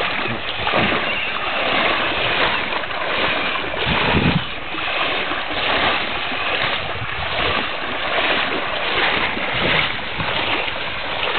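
Rushing of fast-flowing floodwater mixed with wind on the microphone: a steady noisy wash that swells and dips.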